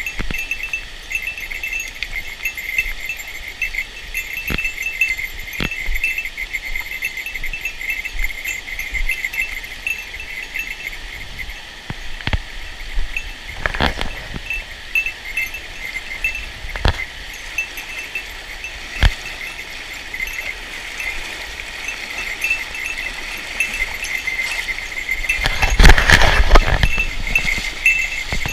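Steady high-pitched chirring of insects, pulsing rapidly. A few sharp clicks are scattered through it, and a louder scuffling noise comes about three seconds before the end.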